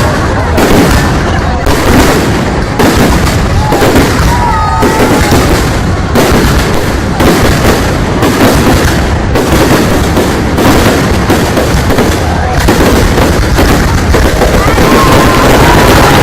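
Aerial fireworks going off in a rapid barrage: dense overlapping bangs and booms, several a second, merging into a near-continuous rumble toward the end.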